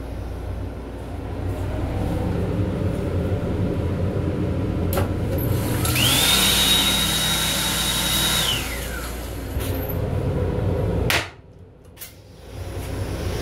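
Sink faucet in an M7 railcar restroom running for about three seconds: water hissing, with a whine that rises, holds at a high pitch and falls away as the water stops. Under it the railcar's steady low rumble, with a couple of sharp knocks.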